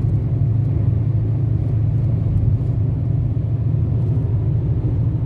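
Steady low rumble inside a small car cruising on the highway at about 100 to 120 km/h: road and engine noise heard from the cabin.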